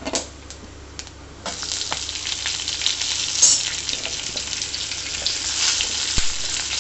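A few light clinks, then about a second and a half in, roughly cut onion goes into hot oil with fried whole spices (pepper, fennel, cumin, cloves, cinnamon, cardamom) and starts sizzling loudly in the pan.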